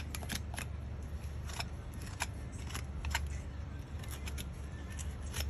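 Sharp, irregular snips and clicks of farrier's tools cutting hoof horn during a trim, some coming in quick runs of two or three, over a low steady hum.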